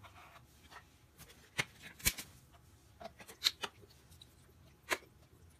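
Small plastic bottles being handled, giving a scatter of short clicks and taps over several seconds. The loudest cluster comes past the middle, with a last click near the end.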